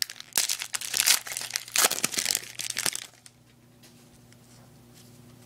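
Football card pack wrapper being torn open and crinkled by hand, crackling for about three seconds before going quiet.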